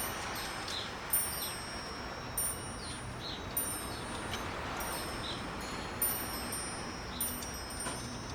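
Metal wind chimes ringing in a strong wind: high bright tones struck irregularly, roughly once a second, over a steady rush of wind.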